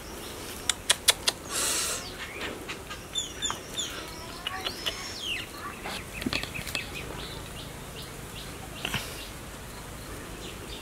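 Birds chirping in the background, with a few sharp clicks and a brief rustle in the first two seconds from hands working through dry leaves and loose earth.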